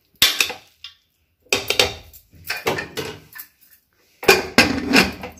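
Metal spoon scraping and clanking against the inside of an aluminium pressure cooker while mixing cooked biryani rice, in four short bursts of strokes.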